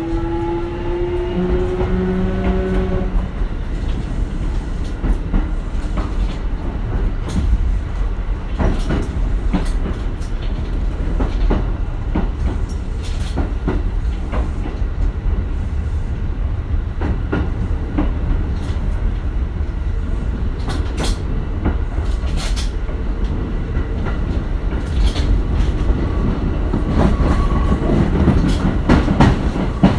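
Kintetsu 1420 series train with Mitsubishi GTO-VVVF traction control, heard from inside the car. In the first three seconds the inverter and motor whine rises in pitch as the train accelerates, then stops. After that the train runs on with a steady rumble and the clack of wheels over rail joints, the rumble growing louder near the end.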